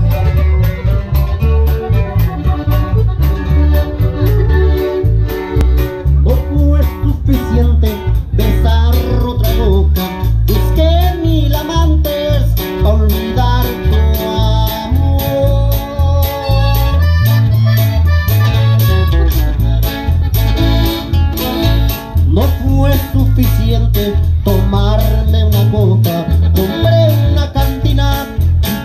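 Live band amplified through PA speakers: a heavy bass and drum beat with guitar and singing.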